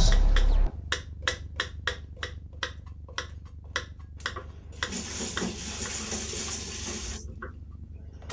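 Kitchen knife chopping on a cutting board in steady knocks, about three a second, for about four seconds. Then comes a steady hiss of about two seconds that stops suddenly.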